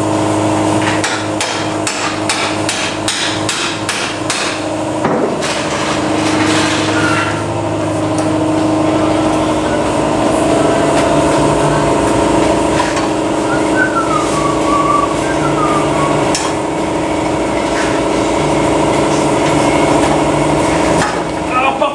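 Handheld power tool cutting into a steel exhaust pipe clamped in a bench vise. It gives a steady high-pitched running tone, with a quick run of sharp clattering hits in the first few seconds.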